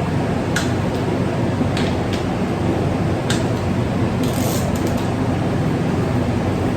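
Steady whoosh of a running electric fan, with a few faint, light clicks scattered through it.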